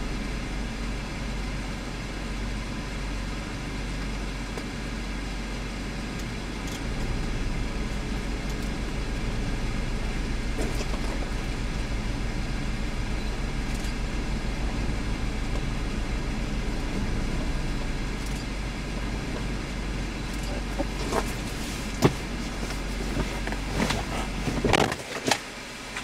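Steady rumble and hiss of a stopped vehicle with its engine running. A few sharp knocks come near the end.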